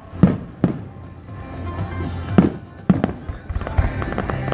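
Aerial firework shells bursting: about five sharp bangs, two in the first second and a quick cluster around the middle, each echoing briefly. Music plays underneath and grows more prominent near the end.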